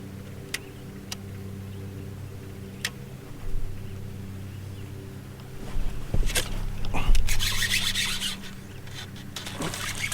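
A steady low mechanical hum with a few sharp clicks in the first three seconds, then loud rubbing and handling noise from about six to eight seconds in.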